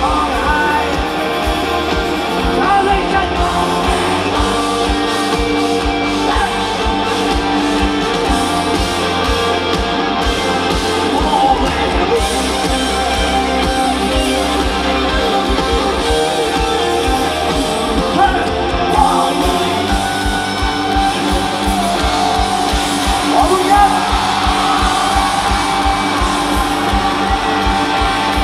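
Live rock band playing loud, with a singer over electric guitars and a steady drum beat.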